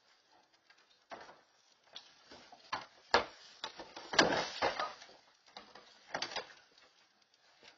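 Black bear tipping over and rummaging through a plastic wheeled trash cart: a string of irregular knocks, scrapes and clatter, with the loudest bangs about three seconds in and again around four seconds in.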